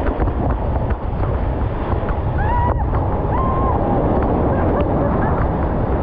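Whitewater of a breaking ocean wave rushing around an inflatable raft, with wind and water buffeting the action camera's microphone, dull and muffled. A faint brief voice cries out near the middle.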